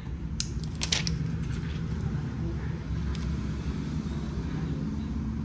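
A few sharp clicks and taps, most of them about a second in, from small tools and parts being handled during a phone screen replacement, over a steady low rumble.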